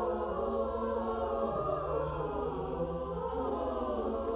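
Chamber choir singing, several voice parts holding and shifting sustained notes without clearly sung words.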